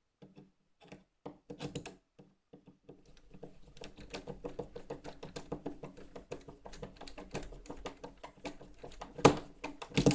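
A hand screwdriver driving a screw into a door handle's backplate: a dense run of small clicks and scraping as the screw is turned. A sharp, loud click comes near the end.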